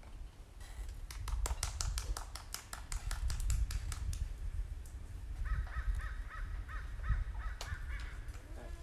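A run of sharp clicks for a few seconds, then a bird calling in a quick series of harsh repeated notes, over a low rumble.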